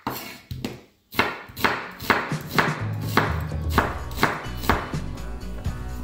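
Chef's knife slicing an onion on a wooden cutting board, the blade knocking the board in a steady run of cuts about two a second. Background music plays underneath.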